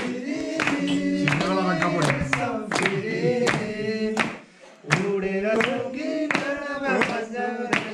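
Several men singing a song together while hands clap along in a steady rhythm; the singing and clapping break off briefly about four and a half seconds in, then resume.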